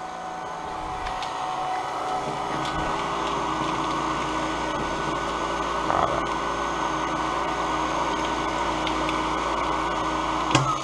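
Professional cotton candy machine running: a steady motor whir from the spinning head as it throws out sugar floss. There is one sharp click near the end.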